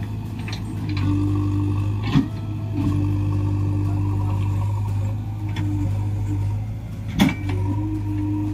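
Heavy machine's diesel engine idling steadily, with a wavering higher whine that comes and goes. Two sharp knocks, about two seconds in and about seven seconds in.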